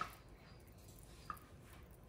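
Faint wet squishing of minced pork being pressed by hand into a piece of tofu, with two short high squeaks, one at the very start and one just past halfway.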